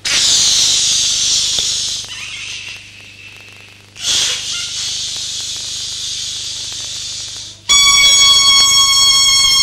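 Air hissing out of a rubber balloon, two long hisses with a short quieter gap between them, the first slowly falling in pitch. Near the end, music with a held bowed-string tone comes in.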